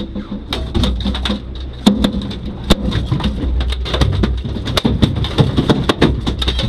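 Rapid, irregular knocks and thumps on a boat's deck and fittings, several a second, over a steady low hum.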